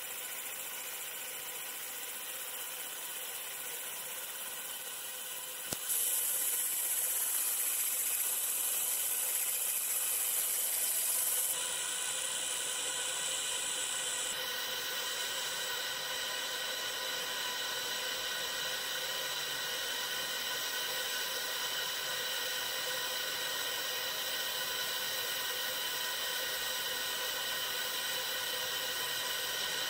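A 100W JPT MOPA fiber laser marking machine engraving an aluminium plate: a steady hiss with high whining tones. It gets louder about six seconds in and the highest tones change a few seconds later.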